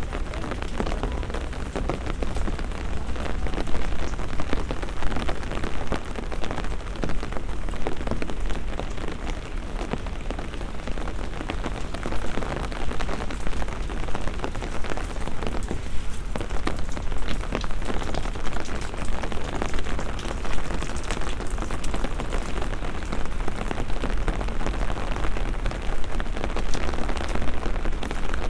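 Steady rain falling, dense with close pattering drop impacts, over a steady low rumble.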